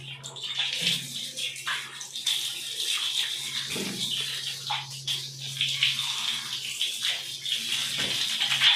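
Water running and splashing from a shower hose onto a wet dog's coat and a tiled floor while the dog is bathed, with a steady low hum beneath it that stops about seven seconds in.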